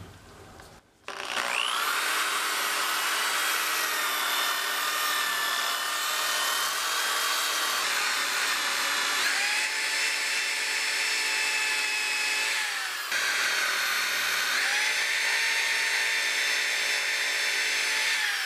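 DeWalt random orbital sander sanding a steel hatchet head with a 400-grit disc. It spins up about a second in and runs with a steady whine that shifts pitch a few times, dips briefly about thirteen seconds in, then stops just before the end.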